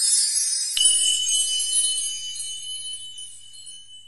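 Intro sound effect for an animated subscribe button and bell: a shimmering cluster of high chime-like notes fading out, with a click just under a second in followed by one steady high ringing tone.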